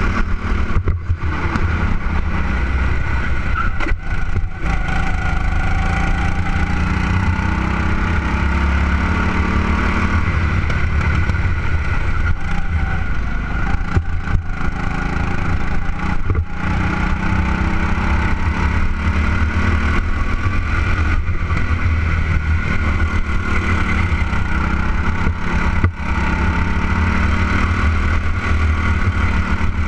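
Go-kart engine running hard at racing speed, heard close up from on board, its pitch rising and falling as the kart accelerates out of corners and eases into them, with a few brief dips in loudness.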